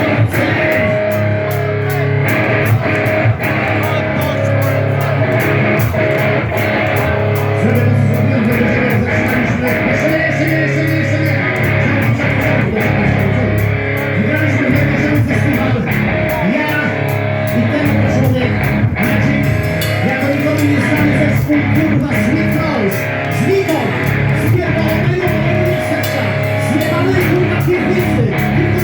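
Live metal band playing loudly: guitars and bass over a steady drum beat.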